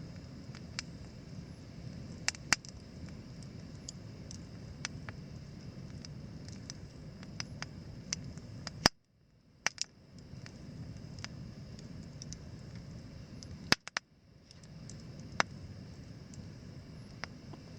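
Wood fire crackling, with a steady low hiss and many sharp, irregular pops. The sound cuts out briefly twice near the middle.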